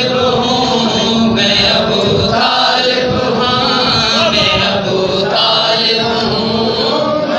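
A man singing a devotional naat in a chanting style, long melodic phrases that rise and fall with short breaks between them.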